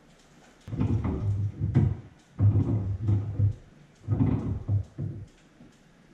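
Threaded metal fitting on a shower valve stub-out being turned and tightened with pliers over sealant-coated threads: three rough turning bouts of about a second each.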